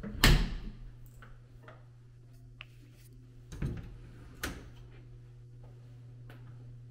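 Closet door opened by its lever handle: a sharp click-knock from the latch and door about a quarter second in. Two lighter knocks follow near the middle, over a steady low hum.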